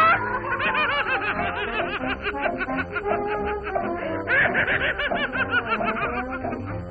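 Vintage cartoon soundtrack: orchestral music with rapid, high-pitched snickering laughter over it.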